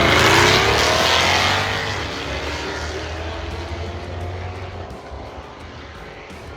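Drag race car accelerating hard away down the strip, its engine note rising in pitch and fading steadily as it pulls away.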